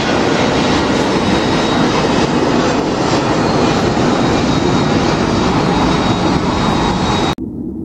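Airbus A320's twin jet engines at takeoff power as it climbs away: a loud, steady rushing jet noise with a faint thin whine on top. Near the end it cuts off abruptly to a quieter low rumble.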